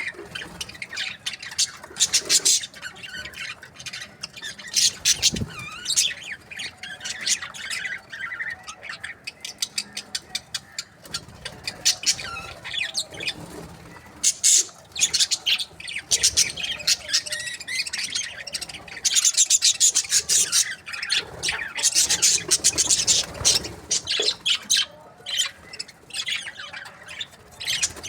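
A flock of budgerigars chattering continuously: fast warbling chirps mixed with sharp squawks, busiest about two-thirds of the way through.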